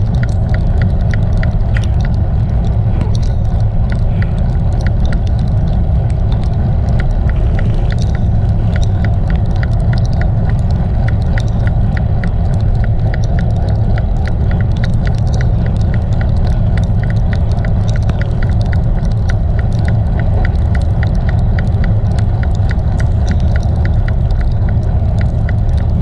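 Wind rumbling steadily over the microphone of a camera riding on a moving bicycle, with tyre noise on a wet road. Over it runs a light, regular ticking about three times a second.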